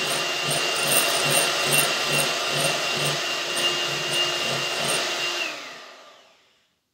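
Electric hand mixer whipping double cream in a glass bowl, the motor running with a steady whine and a regular pulse about twice a second as the beaters churn the cream. About five and a half seconds in it is switched off and winds down, its pitch falling as it fades out; the cream has reached soft peaks.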